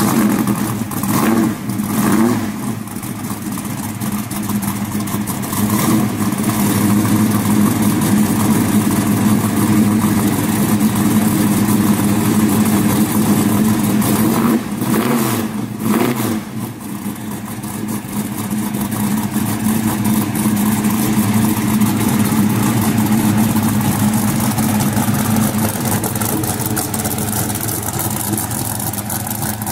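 1970 Chevrolet Chevelle SS big-block V8 running at idle through its exhaust, with a couple of quick revs near the start and again about halfway through.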